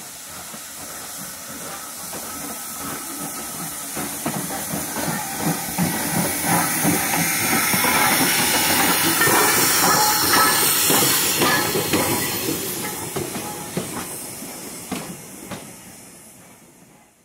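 Steam locomotive hissing steam, with scattered clanks and knocks. It grows louder to a peak about ten seconds in, then fades away and cuts off near the end.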